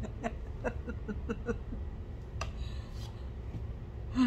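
Soft laughter trailing off in a run of short pulses, then a single click and a brief louder sound near the end, over a low room rumble.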